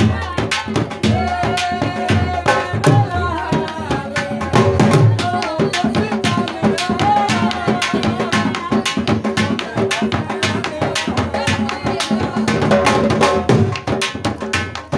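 Dhol drum beaten with sticks in a fast, steady folk-dance rhythm, with a wavering melody line carried over the beat.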